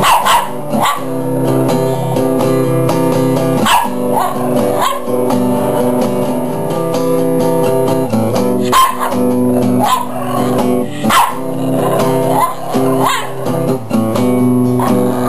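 Shih tzu howling along to a guitar being played, in about nine short calls that slide up and down in pitch over the steady guitar notes.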